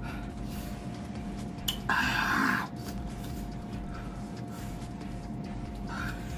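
A person's short, sharp hissing breath about two seconds in, the kind drawn while eating very spicy food, over a steady faint hum.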